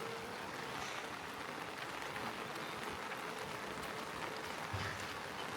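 Steady rain falling, with many small drops ticking on surfaces close by.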